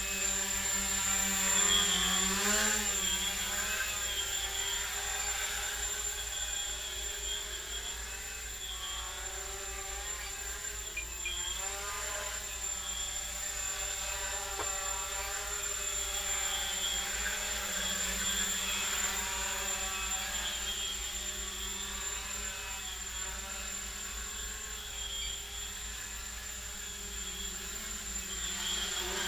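Micro quadcopter's brushless motors (RC Tiger 1306) and 6x2 carbon-fibre props buzzing in flight, the pitch wavering up and down as the throttle changes, with the sharpest swings about two seconds in and again around eleven seconds.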